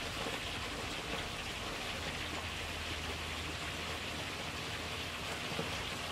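A steady, even hiss like running water, with a faint low hum about two seconds in.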